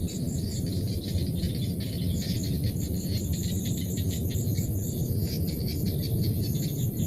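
Rice-field insect chorus: a steady high-pitched buzz, a chirp repeating about four times a second, and dense rattling calls, over a steady low rumble.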